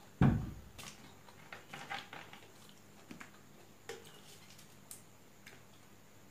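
A dull thump about a quarter second in, the loudest sound, then soft scattered clicks and squishes of eating: fingers mixing rice on a steel plate and chewing.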